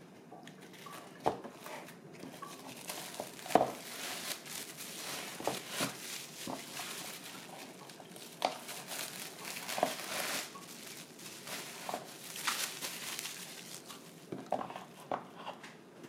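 Crinkling and rustling handling noise in a small room, with irregular light clicks and knocks scattered throughout.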